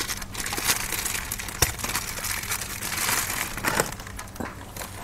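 Plastic mushroom grow bag crinkling and crackling as it is gripped and shifted on newspaper, in irregular bursts of rustling with small clicks.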